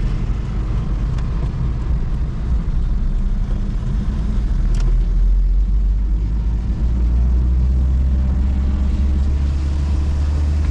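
Car on a wet road heard from inside the cabin: a steady low rumble of engine and tyres, with a single small click about five seconds in.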